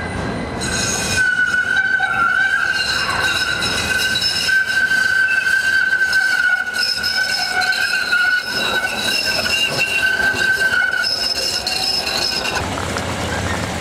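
Steel wheels of a modern low-floor articulated tram squealing against the rails as it takes a tight curve: a steady high-pitched squeal with ringing overtones, starting about a second in and stopping shortly before the end.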